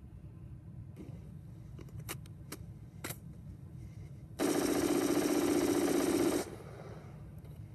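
AR-15 rifle firing one continuous rapid burst of about two seconds that stops suddenly, after a few faint clicks, over a steady low rumble.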